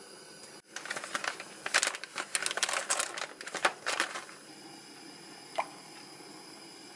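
A plastic food packet crinkling and rustling as it is handled and torn open, a dense crackle lasting about three and a half seconds. A single short blip follows about five and a half seconds in.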